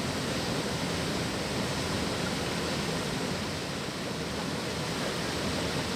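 Rushing river water flowing steadily: a continuous even wash of noise.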